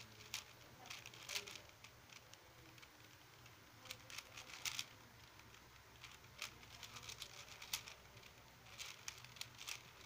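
Stickerless 4x4 speedcube being turned fast: faint runs of quick plastic clicks as its layers snap round, coming in bursts with short pauses between.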